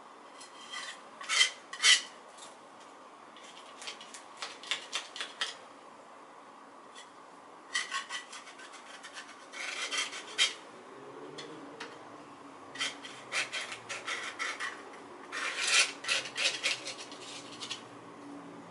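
Metal palette knife scraping and smearing acrylic paint across a painting board, in groups of quick strokes with short pauses between.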